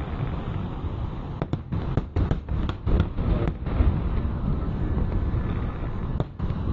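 Fireworks display: aerial shells bursting in a continuous low rumble of booms, with a rapid run of sharp cracks and pops from about one and a half to three and a half seconds in.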